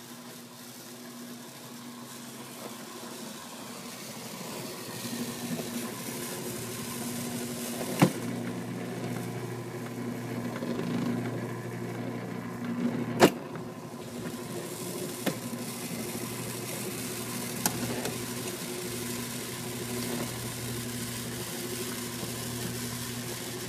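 CatGenie self-washing litter box running its cleaning cycle: a steady motor hum as the bowl turns and the scoop arm works through the washable granules, growing louder over the first few seconds, with two sharp clicks about a third of the way in and just past halfway.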